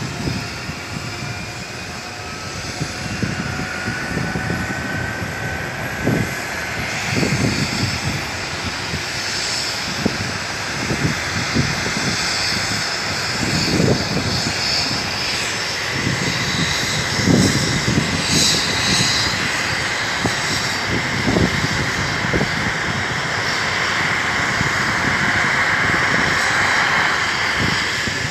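Rescue helicopter's turbine engines starting up on the ground: a whine that rises in pitch over the first few seconds, then settles into a steady high whine that grows louder toward the end, over uneven low rumbling.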